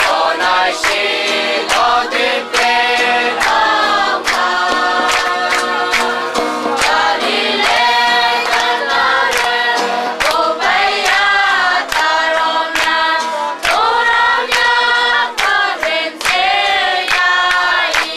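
A congregation of men and women singing a hymn together without instruments, with evenly spaced hand-claps keeping the beat.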